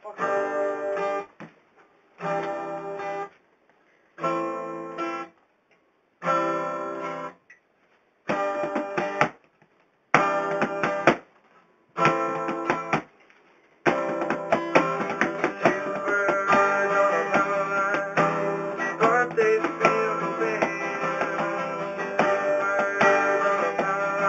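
Acoustic guitar strummed in short chords, each cut off, about one every two seconds. Just over halfway through it changes to continuous strumming.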